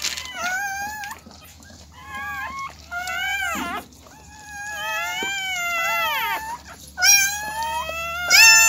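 Newborn Siberian husky puppy crying: a run of high, squealing calls that rise and fall in pitch, the longest lasting about two seconds, as the mother licks it clean.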